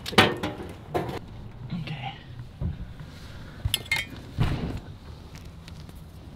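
A few sharp clinks and knocks of metal gear being handled, separated by short gaps.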